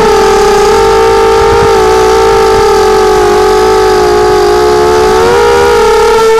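Steady whine of a hexacopter's six brushless motors (Tiger MN1806 2300kV) and propellers in flight, heard from on board. The pitch wavers a little about five seconds in.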